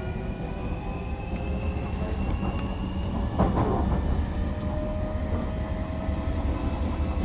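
Interior running sound of a JR Kyushu 305 series electric train's motor car under way: the traction motors' whine climbs slowly in pitch as the train gathers speed, over a steady rumble from the wheels. A brief rush of louder noise comes about three and a half seconds in.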